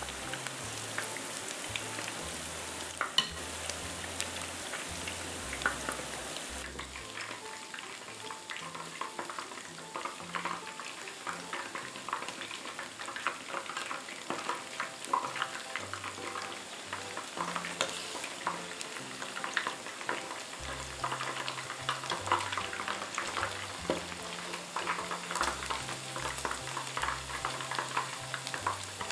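Battered boneless chicken thigh pieces deep-frying in hot oil: a dense, steady crackle and sizzle of many small pops, with chopsticks stirring and turning the pieces.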